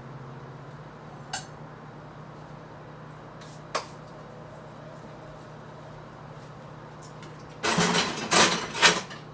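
Kitchen handling sounds over a low steady hum: two light knocks, then a loud burst of clattering and rustling close by near the end.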